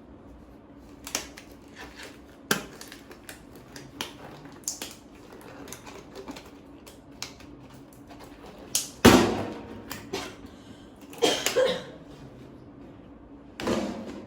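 Irregular knocks, clicks and clatter of objects being handled, with a few louder, longer knocks in the second half over a faint steady hum.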